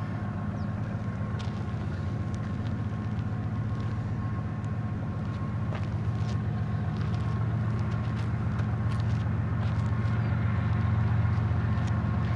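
Distant lead locomotives of a BNSF freight, an ES44DC leading with ES44-series units trailing, running on their GE GEVO V12 diesels as they approach. It is a steady low engine hum that grows slowly louder.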